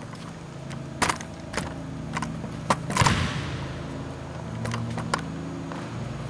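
Footsteps and scattered knocks on a hardwood gym floor, echoing in the hall, the loudest about three seconds in, over a steady low hum.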